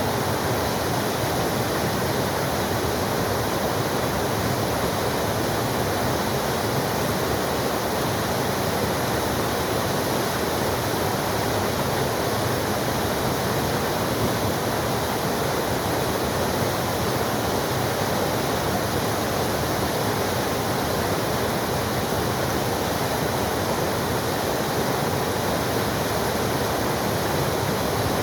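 Forest waterfall pouring: a steady, even rush of falling water.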